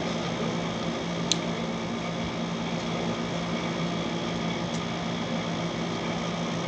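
Steady hum of a window air conditioner running, with a single sharp click about a second in.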